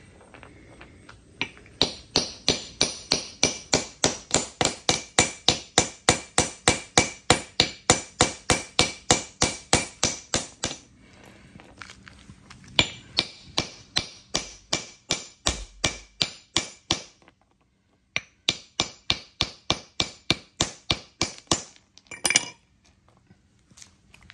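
Hammer tapping rapidly on a geode to crack it open, about three to four strikes a second. The strikes come in three long runs with short pauses between, and end on one louder hit.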